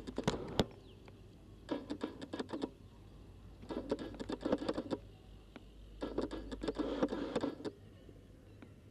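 Rapid, dense clicking and scratching in four bursts of about a second each, typical of a long field measuring-tape reel rattling as its tape is run out or wound in.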